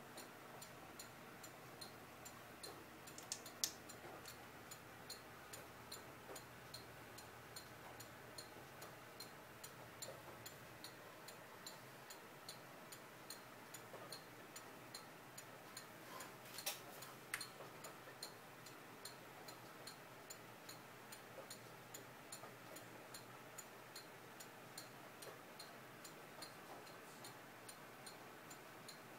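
Antique English eight-bell chiming clock movement ticking, a fast, even tick from its escapement. There is a sharper click about three and a half seconds in and two more about halfway through.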